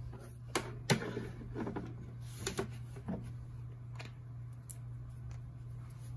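A few soft taps and clicks as a hand with press-on nails is set into a nail curing lamp, the sharpest about a second in, over a steady low hum.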